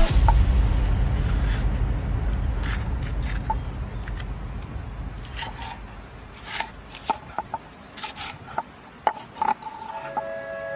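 Knife cutting red bell pepper on a wooden chopping board: scattered sharp knocks and slices of the blade against the wood, coming more often in the second half. A low rumble fades away over the first few seconds.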